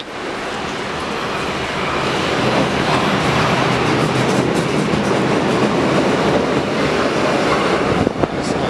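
Berlin U-Bahn train pulling out of an underground station and gathering speed: a steady rumble of wheels and running gear with some clatter. It grows louder over the first couple of seconds, then holds.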